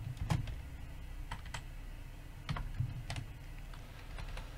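Computer keyboard keys pressed in scattered, irregular clicks, a few at a time with short gaps, over a low steady hum.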